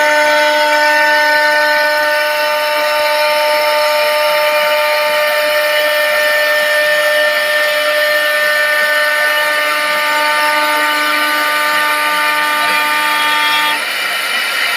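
CNC wood-turning lathe running: a steady machine whine over a hissing noise, the whine stopping shortly before the end.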